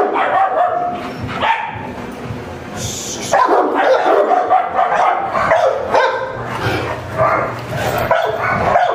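Several dogs, including French mastiffs (Dogues de Bordeaux), barking over one another without a break, a little softer about two seconds in.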